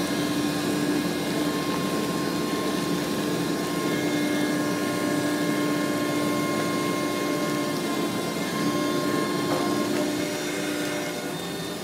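Engine of a small boom boat (log dozer boat) running steadily under power: a continuous drone with a held hum, easing slightly near the end.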